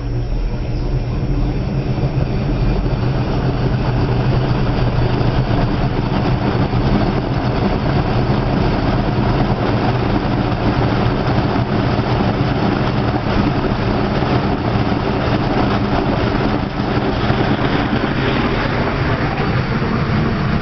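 Electrolux washing machine spinning, the drum speeding up over the first few seconds and then running at a steady, loud whir. The load is well balanced: no knocking or banging.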